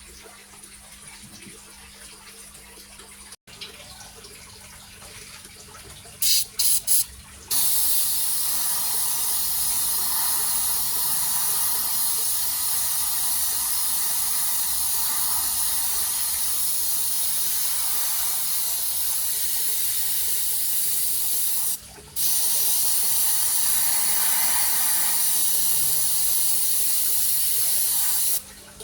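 Airbrush spraying paint: a few short bursts of hiss, then a long steady high-pitched hiss. It stops briefly and starts again for several more seconds.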